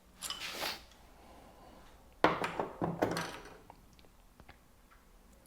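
Small hard grip parts being handled: a short scraping rustle, then about two seconds in a sharp knock and a brief clatter as they are set down, with a few light clicks after.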